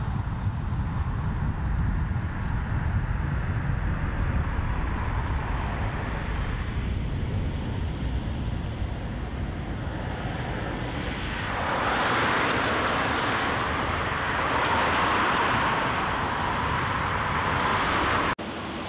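Outdoor street ambience of road traffic, with a low rumble of wind on the microphone. From about halfway through, a louder rush of passing vehicles swells up twice, then cuts off suddenly near the end.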